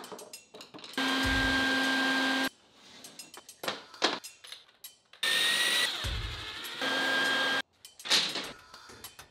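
Wet/dry shop vacuum running in two short bursts of about two seconds each, a steady rushing hum with a high whistle, each cut off abruptly; the second begins with a rising whine. Sharp clacks and knocks come in the quieter gaps between.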